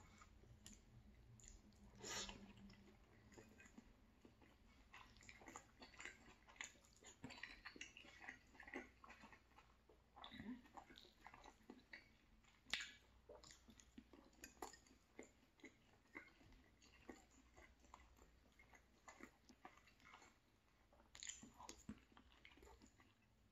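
Faint close-up sounds of a person chewing pasta with sausage: soft wet mouth smacks and small irregular clicks, with a few sharper clicks now and then.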